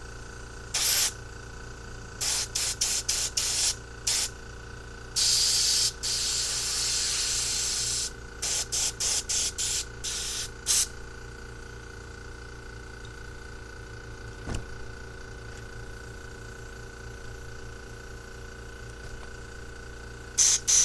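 Pressurized spray hissing in short blasts, aimed into a carburetor's jets and passages to clear them: a dozen or so quick bursts with one longer blast of about three seconds among them. It stops after about eleven seconds, then starts again near the end.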